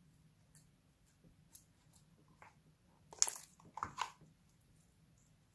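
Hands pressing and squishing blobs of glossy slime in a glass tray: faint sticky ticks, then a louder burst of wet crackling and squelching about three to four seconds in.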